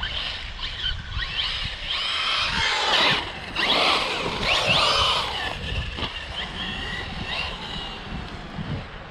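Electric RC car's motor whining, its pitch gliding up and down with bursts of throttle, over tyre and gravel noise, with a few dull thumps. The throttle is heaviest in the middle, then eases off.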